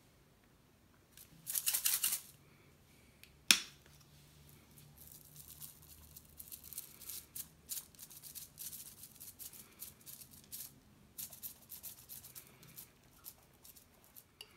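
Spice shaker of garlic seasoning shaken in short rattling strokes, the grains rattling inside and pouring out. One longer burst of shaking comes near the start, a single sharp click follows a second or so later, then a long run of quick uneven shakes.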